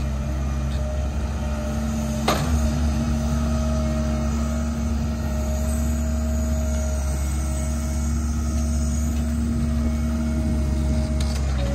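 Heavy diesel farm machinery engine running steadily with a constant hum, and one sharp click about two seconds in.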